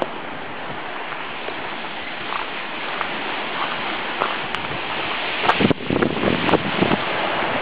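Surf washing onto a shingle beach as a steady hiss, with wind on the microphone. A cluster of knocks and thumps comes in a little past halfway.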